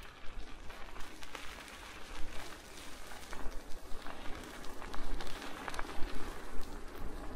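Bicycle being ridden: tyres rolling over the path with many small crackles, clicks and rattles, and wind rumbling on the microphone.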